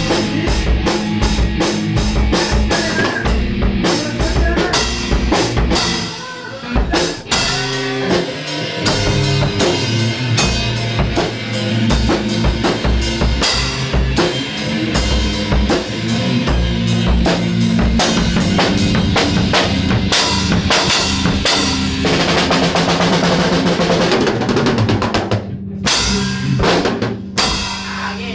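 Mapex M Birch drum kit played in a fast rock beat of bass drum, snare and cymbals, with a few short breaks.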